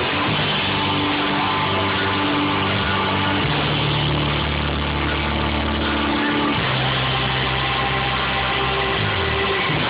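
Celtic rock band playing an instrumental passage live on keyboard, fiddle, electric bass and drums, with long low bass notes that change every second or two.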